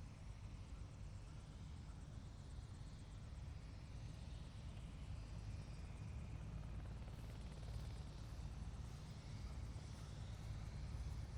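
Helicopter running, a steady low rumble with a rapid fine pulsing, getting slightly louder towards the end.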